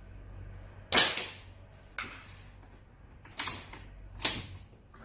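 Gamo PCP air rifle firing: one sharp crack about a second in, the loudest sound, then three quieter sharp clacks over the next few seconds.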